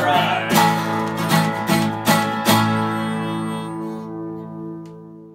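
Two acoustic guitars strumming the closing chords of a rockabilly song: a few sharp strokes, then a final chord left ringing and slowly fading away.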